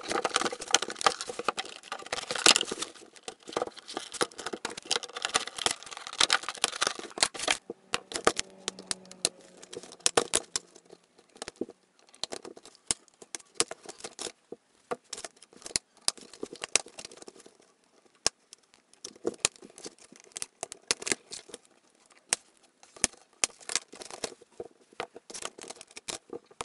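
Toy packaging being opened by hand: clear plastic tray and cardboard crinkling, tearing and rustling. The crackling is dense for the first several seconds, then thins out into scattered clicks and rustles as the dolls are worked free.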